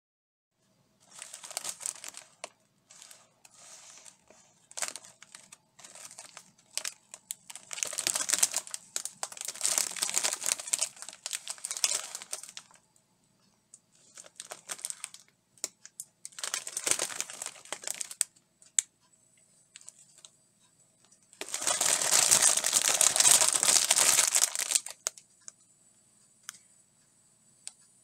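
Plastic package of rice cakes crinkling as it is handled and turned over, in irregular bursts. The longest and loudest crinkling comes about three-quarters of the way through.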